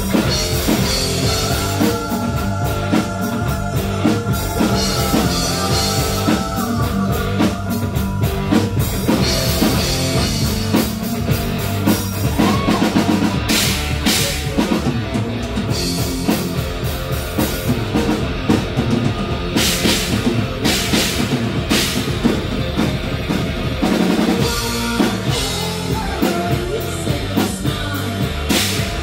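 Live rock band playing an instrumental stretch, with drum kit, bass and guitar, and cymbal crashes about halfway through.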